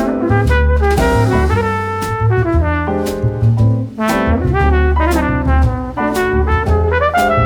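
Background music with brass, a steady beat and a bass line.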